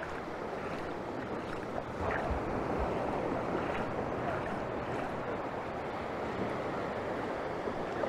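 Ocean surf breaking and washing up a flat sandy beach, a steady wash that gets a little louder about two seconds in.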